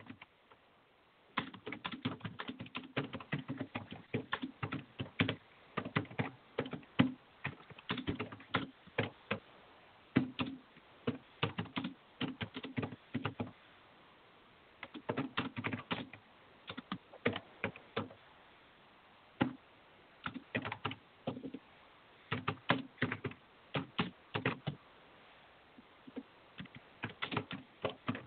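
Typing on a computer keyboard: bursts of quick key clicks broken by short pauses, starting about a second in.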